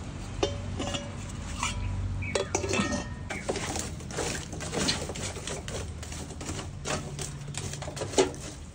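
Metal clinking and clattering: a steel plate is set as a lid on a clay handi pot, with brief ringing, then metal tongs rake through glowing lump charcoal with repeated sharp clinks and scrapes. One louder knock comes near the end.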